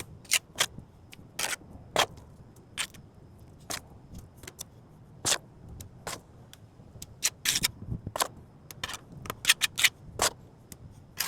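Metal margin trowel scraping and tapping as quick-setting cement is pressed into broken curb concrete: short irregular scrapes and clicks, coming faster near the end.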